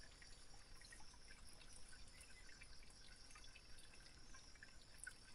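Near silence with faint trickling water and scattered small ticks.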